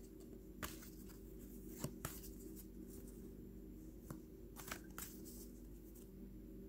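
Trading cards being flipped through by hand, one card slid behind another: faint scattered slides and flicks of glossy card stock, a few sharper snaps among them.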